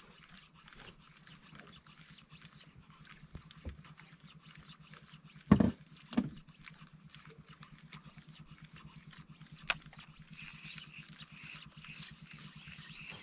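A boat's engine running steadily at idle, a low even hum, with two loud thumps about half a second apart halfway through.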